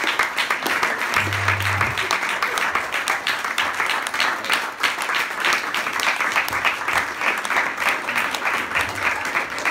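A small crowd applauding, dense and steady hand-clapping.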